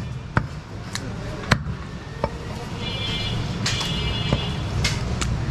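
Butcher's cleaver chopping goat chest meat and bone on a wooden log chopping block: about eight sharp strikes at uneven intervals, over a steady low hum.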